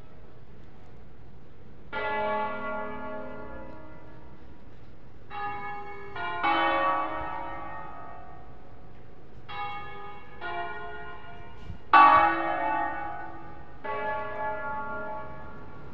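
Church bells of Cremona Cathedral, its seven-bell peal in A-flat major rung a concerto: single strokes on different bells follow one another, each ringing on as it dies away. The loudest stroke comes about twelve seconds in.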